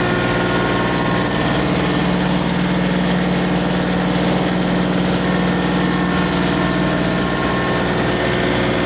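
Vehicle engine running steadily at idle, a constant low hum with a deeper tone that swells about two seconds in.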